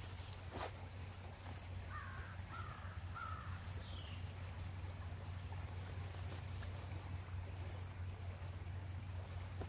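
A bird giving three short calls about two seconds in, over a steady low background hum.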